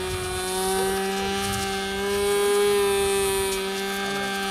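10 cc nitro glow engine of a depron RC plane in flight, running with a steady high buzz at a nearly constant pitch. It grows a little louder through the middle as the plane passes overhead.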